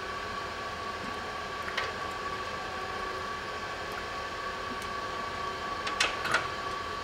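Steady background hum with a constant high whine, over which a screwdriver clicks lightly on the screws of the Aisin 09D automatic transmission's filter: once about two seconds in and a few times near the end.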